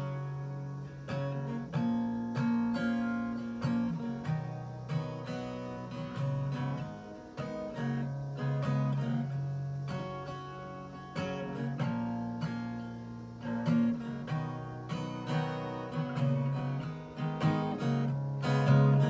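Solo acoustic guitar playing a song's instrumental intro: picked and strummed chords in a steady rhythm, with low bass notes ringing under them.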